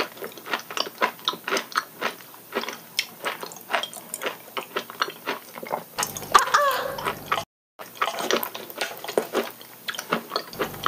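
Close-miked wet chewing and smacking of soft food in a person's mouth, with irregular sharp mouth clicks two or three times a second. A short vocal sound comes about six seconds in, and the sound cuts out for a moment shortly after.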